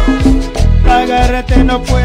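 Live band playing upbeat Latin-style Christian worship music: bass and keyboard over drums on a steady beat.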